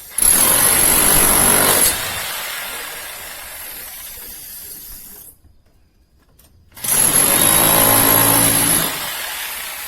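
Electric demolition hammer chiselling into cast concrete, run in two bursts of about two seconds each with a steady high whine over the hammering. Between the bursts it winds down, with a short silent gap.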